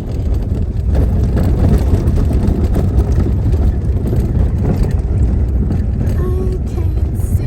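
Steady low road rumble of a car driving along a highway, heard from inside the moving car.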